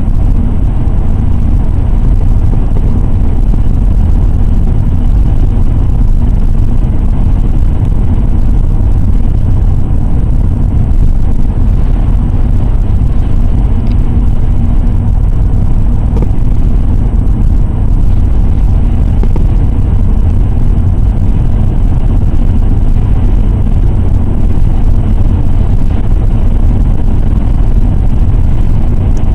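Steady low rumble of road and engine noise inside a car driving along a highway, with no distinct events.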